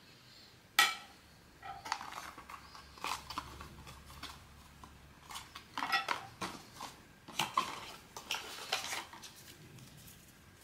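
Small zinc-alloy pin badge and its packaging being handled: a sharp click about a second in, then a run of irregular light metallic clinks and rattles.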